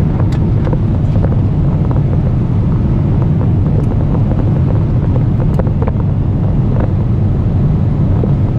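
Steady low drone of a jet airliner's cabin in cruise flight, with a few faint clicks scattered through it.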